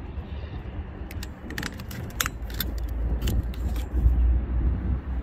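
A worn rubber foot cap being worked and pulled off the end of a stainless-steel swim ladder leg: a quick series of sharp clicks and scrapes lasting about two seconds, from about a second in. Under it runs a low rumble, loudest about four seconds in.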